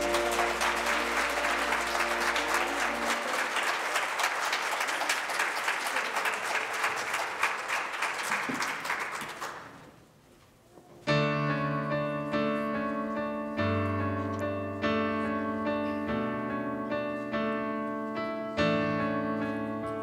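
Audience applauding while the last chord of a song fades out. The clapping dies away about nine seconds in, followed by a second of near silence. Then a piano starts a slow introduction, striking sustained chords about once a second.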